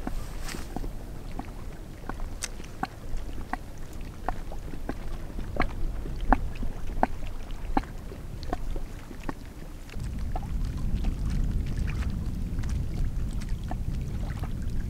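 Small waves lapping and splashing against the loch shore in irregular little plops, over a low wind rumble that grows louder about two-thirds of the way through.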